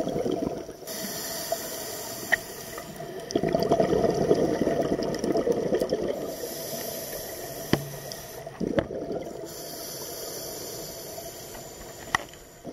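Scuba diver breathing through a regulator underwater: a hiss on each inhale, alternating with bubbling exhaust on the exhale. Three inhales with one exhale between them, and a few sharp clicks.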